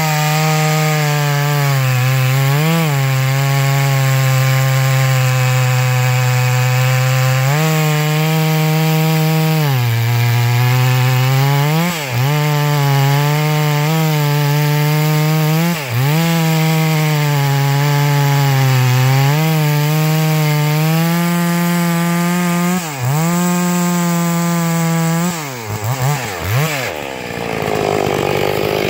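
Clone Stihl 660 two-stroke chainsaw with a Cross Performance MMWS cylinder running at full throttle while cutting through a large log. Its pitch sags again and again as the bar is pushed into the wood and recovers as the load eases. Near the end it rises and falls quickly a few times as the saw comes out of the cut.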